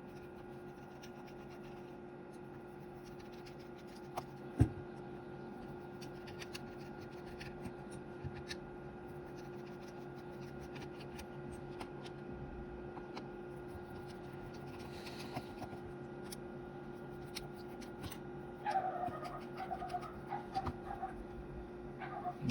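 Small screws being undone with a screwdriver from the plastic case of a handheld radio: faint scratching and small clicks, a single sharper knock about four and a half seconds in, and short squeaks near the end. A steady low hum runs underneath.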